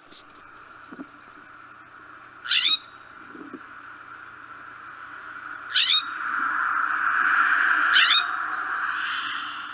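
California scrub-jay giving three short, harsh, rasping calls a few seconds apart, each a quick descending rattle of notes. A steady background hiss swells between the second and third calls.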